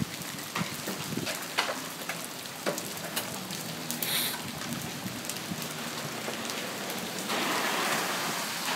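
Steady rain falling on wet pavement and lawns, with scattered sharp ticks of single drops. A louder hiss swells in about seven seconds in.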